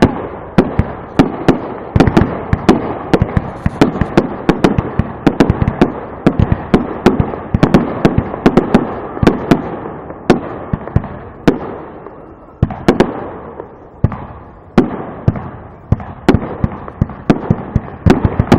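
Fireworks display: a rapid, dense run of sharp bangs and crackles, many overlapping and echoing, with a few brief lulls.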